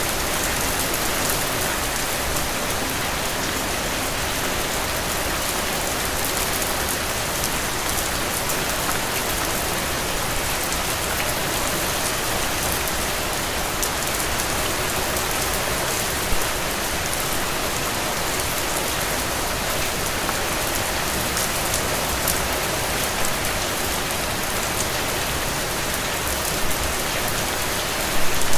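Heavy, steady rain falling on the ground, an even hiss of rainfall with occasional louder nearby drops, a small cluster of them just before the end.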